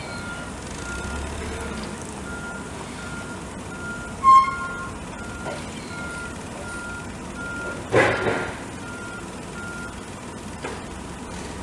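A vehicle's reversing alarm beeps at a steady pace on one pitch, then stops about ten seconds in. A short, loud pitched squeal cuts in about four seconds in, and a brief harsh noise about eight seconds in.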